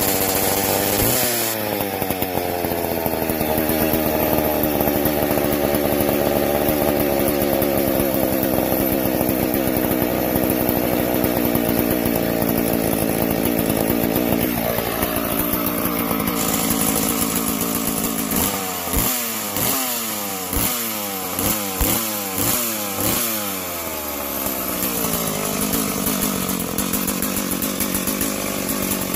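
McCulloch SP81 chainsaw, just rebuilt, running at high speed. Its throttle is then blipped about eight times in quick succession, the pitch rising and falling with each one, before it settles to a lower, steadier speed near the end.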